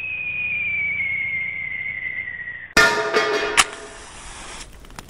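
Sound effects: a single whistling tone slides slowly down in pitch for about two and a half seconds, then cuts off in a sudden loud metallic clang that rings. A second sharp hit follows within a second, and the ringing fades out.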